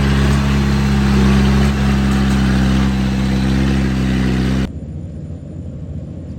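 Yanmar 850 combine harvester's diesel engine running steadily, loud and close, with a deep even hum. About four and a half seconds in it cuts off suddenly to a fainter, lower engine rumble.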